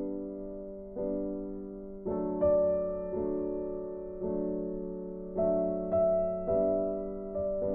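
Background piano music: slow notes and chords, struck about once a second and left to ring out.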